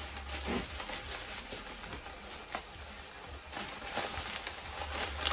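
Paper wrapping rustling and crinkling in irregular bursts as an item is unwrapped by hand, with a single sharp click about two and a half seconds in.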